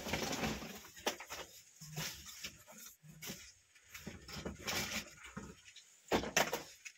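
Irregular rustling and light clicking of scrap circuit boards and electronic parts being rummaged through and handled, with sharper clicks about a second in and near the end.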